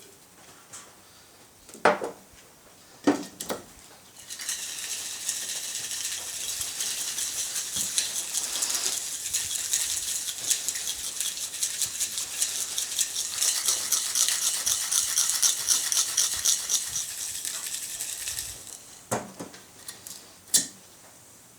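A jar of Satanite refractory and water being shaken hard to mix it: about fourteen seconds of fast, even rattling, with a couple of knocks before it and a few after as the jar is handled.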